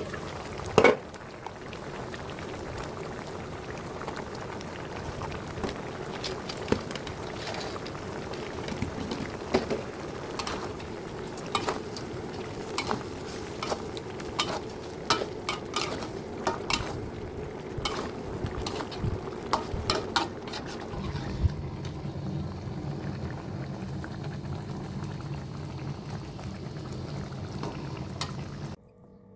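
A pan of sardines cooking, bubbling and sizzling, with a utensil clicking and scraping against the pan as it is stirred. The clicks die away after about two-thirds of the way through, leaving a steady low hum, and the sound cuts off suddenly near the end.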